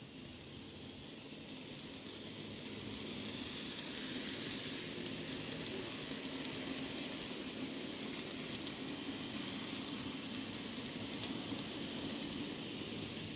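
An N-scale model freight train rolling along the track, a steady crackly whir of small wheels and motors. It grows louder over the first few seconds as the train approaches, then holds steady.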